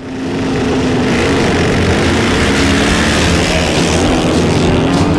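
Triumph scrambler motorcycle's engine running hard as the bike is ridden off across a dirt field.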